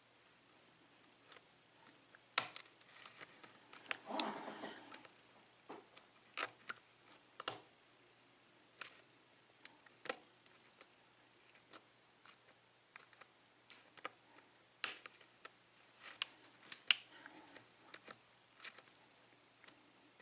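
Lock pick and tension wrench working the pins of a Yale six-pin cylinder lock held in a false set: irregular small metallic clicks and scrapes, with a longer scratching stretch about four seconds in.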